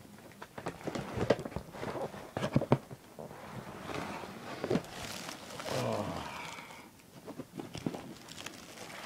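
Parcel packaging being handled and pulled open by hand: a run of sharp taps and knocks, then a stretch of rustling and crinkling wrapping about four seconds in, then lighter handling taps.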